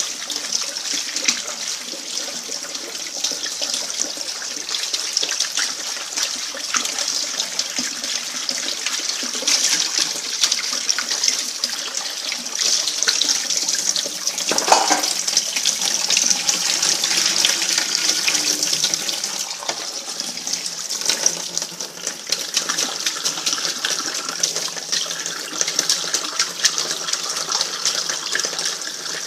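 Kitchen tap running steadily into a sink during washing up, with scattered light knocks throughout.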